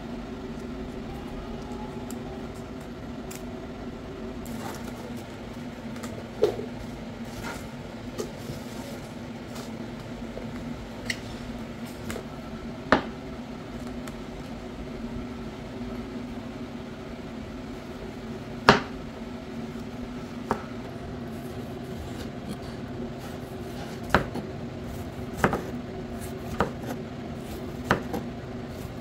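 Kitchenware being handled: about ten short, sharp clicks and knocks scattered over a steady low hum.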